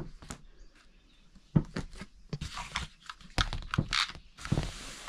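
A drone and its parts being handled and packed into a small carrying case: irregular clicks and knocks with short rustles.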